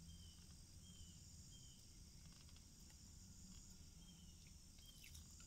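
Near silence: faint room tone with a steady high-pitched drone and a low hum, and a few short falling chirps, several in the first second and a half and two more near the end.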